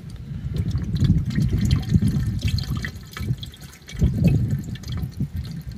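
Sea Foam Motor Treatment glugging and gurgling out of its bottle as it is poured into the engine's oil filler neck, with a short lull a little past halfway.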